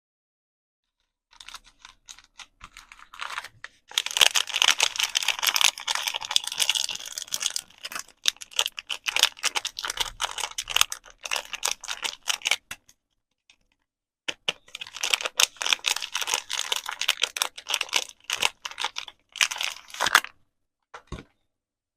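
Soap packaging being handled and unwrapped: dense, crisp crinkling and crackling of wrapping with quick taps mixed in. It starts faintly, builds into a long spell, pauses briefly about halfway, then a second long spell follows and ends with a short crackle near the end.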